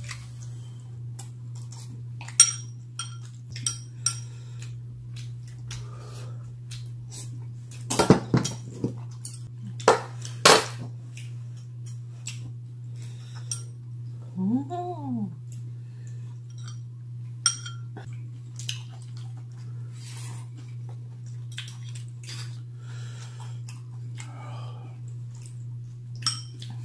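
Spoons and chopsticks clinking and scraping against ceramic bowls and a metal stew pot during a meal, in scattered sharp clicks, busiest around eight to ten seconds in.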